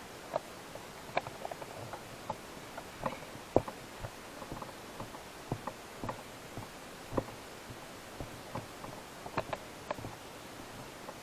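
Scattered light clicks and taps at irregular intervals over a steady hiss, the loudest about three and a half seconds in.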